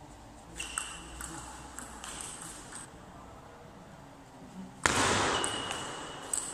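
Table tennis ball clicking sharply off bats and the table in a rally, about seven hits in the first three seconds. About five seconds in, a sudden louder burst of noise starts and fades over the next second or so.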